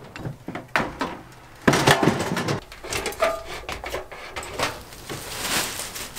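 Rummaging through stored things in a shed loft: knocks, clatter and rustling as bins, bags and a ladder are handled. The loudest handling is about two seconds in, and a second stretch comes near the end.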